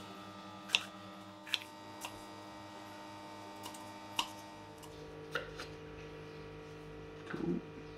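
Kitchen knife dicing red capsicum on a wooden chopping board: sharp, irregular taps of the blade hitting the board, roughly one every second, over a steady faint hum.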